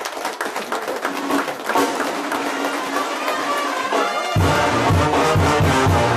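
Brass band playing, with scattered hand clapping at the start; deep bass brass notes come in about four seconds in and the music grows fuller and a little louder.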